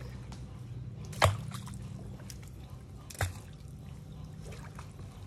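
Water sloshing and dripping, with two sharp splashes about two seconds apart, the first the loudest, over a steady low hum.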